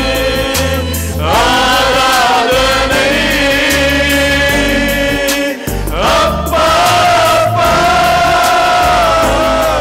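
A man sings a Christian worship song into a microphone in two long held phrases, over an instrumental backing with a steady, changing bass line.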